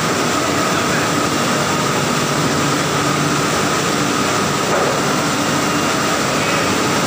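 Banana washing line running: the steady mechanical noise of its conveyor belts and gear motors, with a faint steady whine held throughout.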